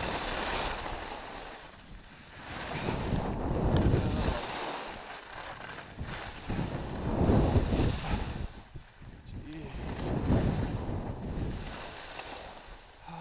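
Wind buffeting the camera microphone and skis scraping over firm, packed snow while skiing downhill, the rush swelling and fading in waves about every three seconds.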